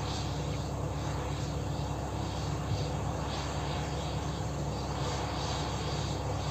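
Diesel engine of a large Case IH four-wheel-drive tractor droning steadily at a distance as it pulls an air seeder across the field.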